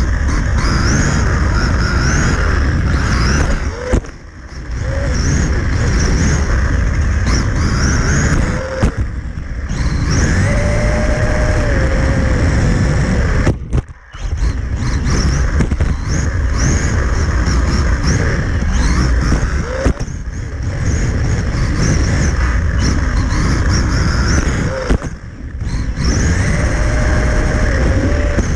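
Onboard sound of a brushless-motored Losi Mini-T 2.0 RC truck lapping a carpet track: the motor's high whine rises and falls with throttle over a steady rush of noise, and it drops away briefly a few times as the throttle is let off.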